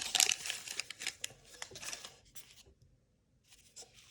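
Cardboard baseball cards and pack wrapper rustling and flicking as they are handled: dense crackling for about two seconds, a brief pause, then a few fainter rustles.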